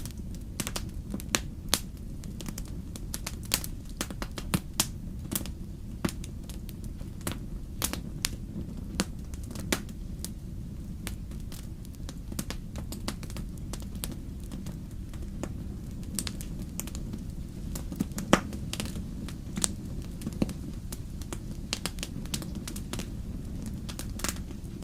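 Wood fire crackling in a fireplace: irregular snaps and pops over a steady low rumble of the flames, with one louder pop about three-quarters of the way through.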